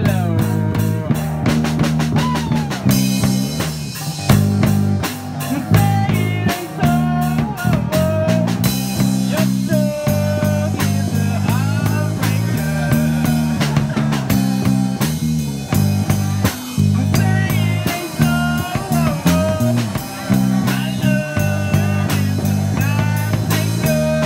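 Live rock band playing: electric guitar and drums over a repeating bass line, with a bending lead melody on top.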